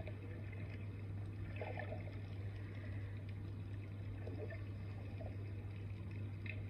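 Muffled underwater water sound from diving footage playing through a tablet's speaker: faint gurgles and sloshing over a steady low hum.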